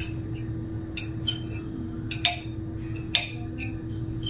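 Knife and fork clinking against a plate while cutting chicken: four short, sharp clinks with a brief ring.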